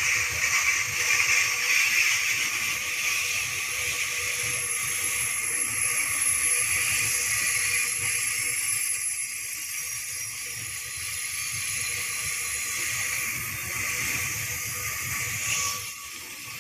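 Loaded coal wagons of a long freight train rolling past: a steady hiss and clatter of steel wheels on the rails, with a thin steady tone running through it. The sound eases slightly near the end.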